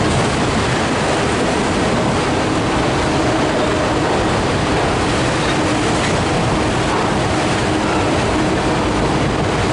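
Empty autorack freight cars of a CSX train rolling past, their steel wheels on the rails making a steady, even noise.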